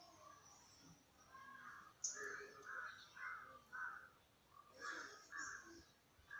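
Faint, repeated bird calls: a quick run of short harsh notes, then two more about a second later.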